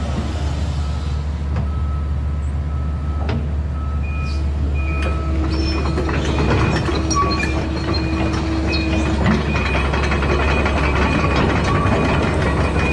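Kobelco SK200-10 hydraulic excavator's diesel engine running steadily, with metal clanking, clicking and short squeals from the machine's steel parts becoming frequent from about four seconds in, as from the steel tracks or working pins under load.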